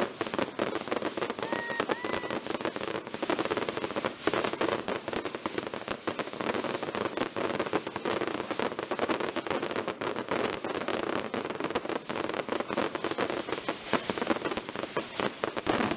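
Many small daytime firecrackers bursting overhead in a rapid, continuous crackle of countless small bangs.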